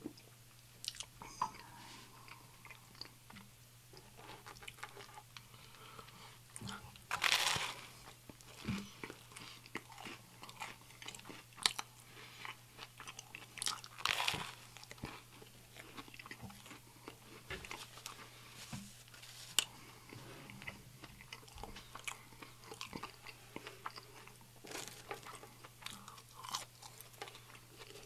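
Close-up eating sounds: a man biting into and chewing an egg salad sandwich, with crunchy bites and wet mouth clicks. The two loudest bites come about 7 and 14 seconds in.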